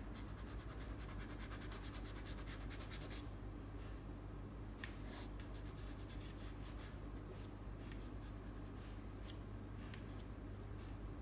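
Soft pastel stick scratching and rubbing across paper. A quick, dense run of strokes comes in the first three seconds, then slower, scattered single strokes, over a steady low hum.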